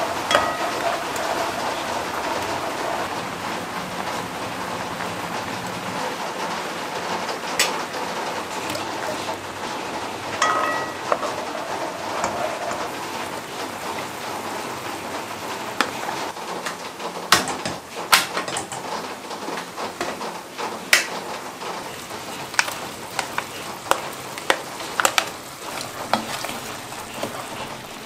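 Coconut milk with green curry paste simmering in a pot over a gas burner, a steady bubbling hiss, with a spatula stirring. From about halfway on, many sharp clicks and knocks of the spatula against the pot as vegetables and mushrooms go in and are stirred.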